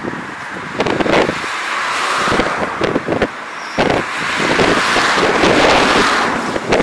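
Road traffic passing on a highway: a broad rush of tyre and engine noise that swells and then eases near the end, with wind buffeting the microphone in short thumps.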